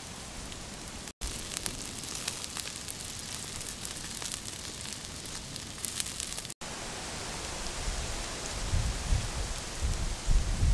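Chicken hearts sizzling on a hot stone slab: a steady hiss with small crackles, cut off for an instant twice. A few low bumps come near the end.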